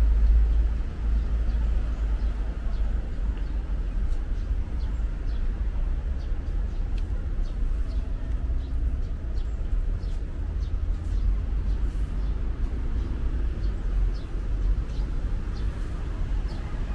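Outdoor ambience: a steady low rumble under an even background hiss, with scattered faint light ticks throughout.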